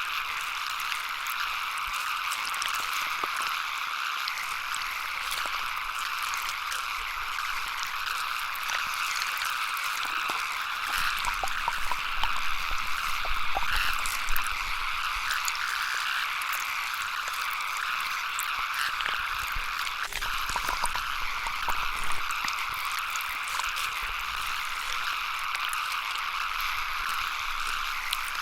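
Steady ambient background sound: a constant hiss sitting in the upper-middle range, sprinkled with small irregular clicks and drips.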